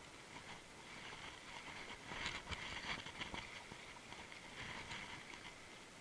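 River water splashing and rippling around an inflatable raft running a riffle, with a louder spell of splashing about two seconds in and a shorter one near five seconds.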